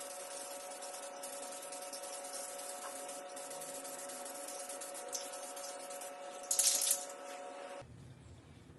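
Paint spraying onto a motorcycle helmet: a steady hiss, with a louder burst of spray about six and a half seconds in, over a steady hum. The hiss stops shortly before the end.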